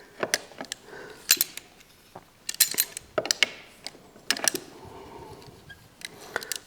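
Vise-grip locking pliers and metal garbage disposal parts clinking as they are handled: sharp metallic clicks and clanks in small, irregular clusters.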